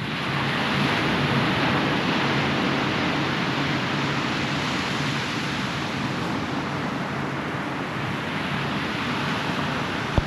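Ocean surf washing on a beach: a steady rush of waves that swells about a second in and then holds. A sharp click comes right at the end.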